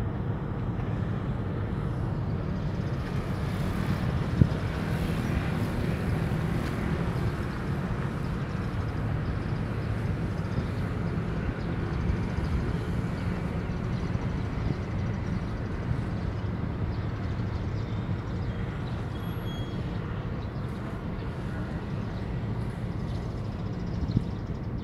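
Marine engine running with a steady low rumble, with one sharp knock about four seconds in.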